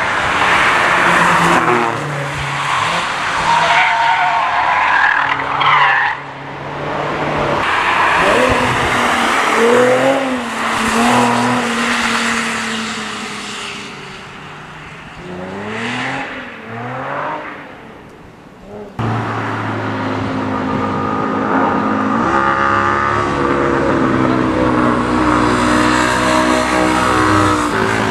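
High-performance cars, a BMW M5 saloon and a Nissan 370Z, driven hard through track corners: engines revving up and down through gear changes, with tyre squeal as they slide. About two-thirds through the sound changes abruptly, and an engine note then climbs steadily under acceleration.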